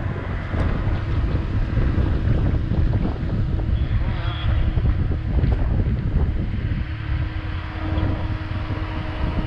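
Wind buffeting the microphone over the steady hum of a Can-Am Commander 1000 side-by-side's engine idling.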